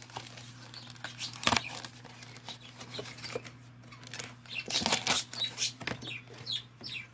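Paper-and-plastic nail-strip packaging being torn open and crinkled by hand. There is a sharp snap about a second and a half in, and a flurry of tearing and rustling around five seconds in.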